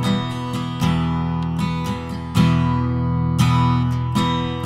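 Acoustic guitar strummed slowly, a stroke about every second, the chords left ringing between strokes.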